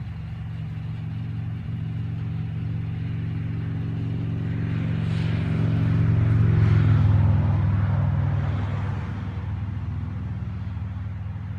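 A motor vehicle's engine humming steadily, with a vehicle passing that swells to its loudest about six to seven seconds in and then fades.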